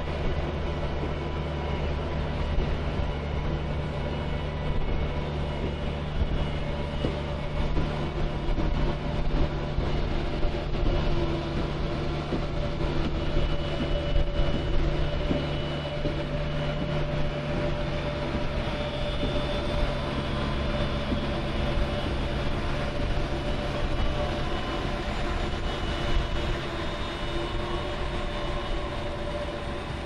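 Ultra Heavy-lift Amphibious Connector prototype, a tracked amphibious vehicle, crawling past close by. Its engine runs with a steady deep hum while its large track pads clatter and rattle over the ground. The deep engine note eases off about three-quarters of the way through.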